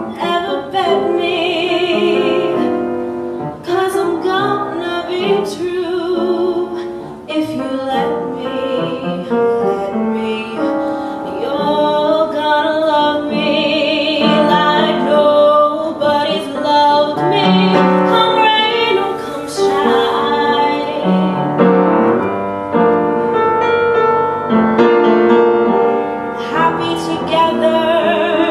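A woman singing a song in a belting style, with wavy vibrato on held notes, accompanied by piano.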